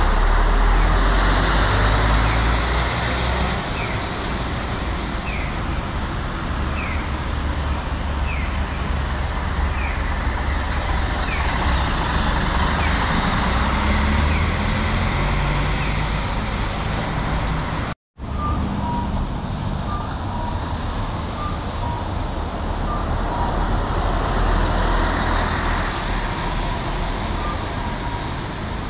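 City and coach buses driving past at close range, their diesel engines rumbling low and heaviest as each one passes. Short high chirps repeat about once a second behind them, and the sound cuts out completely for a moment just after halfway.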